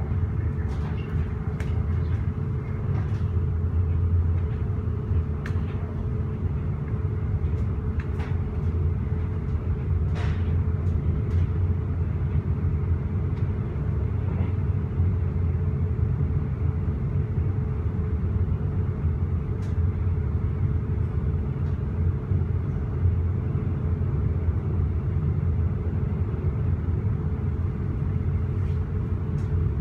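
Steady running rumble of a regional train at speed, heard inside a passenger coach, with a faint steady hum and occasional small clicks and rattles.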